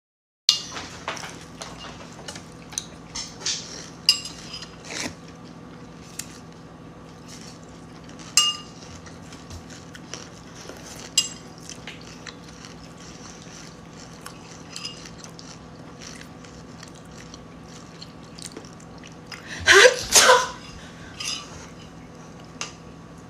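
Dishes and cutlery clinking, with scattered small knocks over a faint steady hum, then about twenty seconds in a loud sneeze that sprays out a mouthful of milk.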